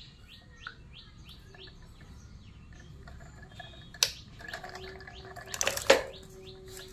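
Small birds chirping over and over in short falling notes. A sharp click comes about four seconds in, and a brief, louder scraping rustle near the end.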